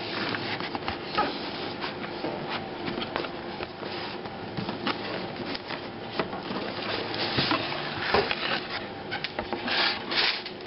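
Packaging being handled while a power supply is unboxed: cardboard and plastic rubbing and rustling, with scattered light knocks and clicks.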